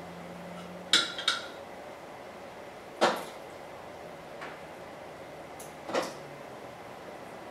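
Metal kitchen tongs clinking against glass canning jars and a glass baking dish while beef chunks are packed into the jars: a quick double clink about a second in, then single knocks about three and six seconds in.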